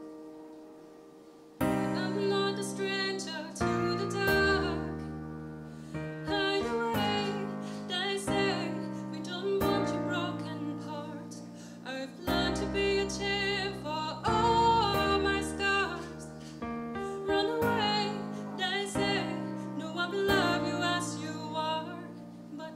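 A woman singing solo over piano chords. The piano comes back in about a second and a half in, after the last chord dies away, and her voice has a light vibrato on held notes.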